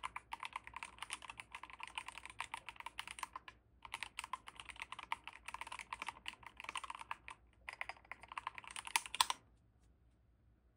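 Fast typing on a DrunkDeer G75 rapid-trigger keyboard with magnetic switches: a dense stream of key clicks with two brief pauses. A few louder strokes come about nine seconds in, and then the typing stops.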